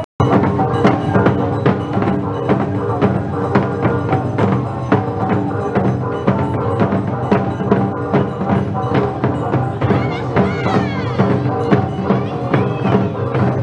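Bon odori dance music: a steady beat of drum and sharp clacking strikes over a melody, after a brief cut-out at the very start.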